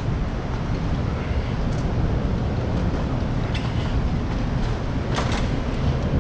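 Steady low rumble of wind and road noise from a moving bicycle, with a short sharp clatter about five seconds in.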